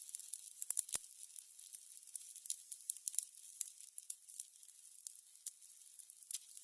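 Burning candles crackling: a soft, high hiss with irregular sharp pops and snaps, two of the loudest about a second in.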